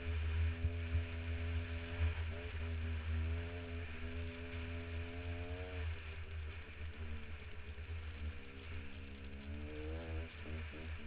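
Dirt bike engine under way, holding a steady pitch for about six seconds, then dropping as the throttle eases and climbing in a short rev near ten seconds, over a heavy low rumble.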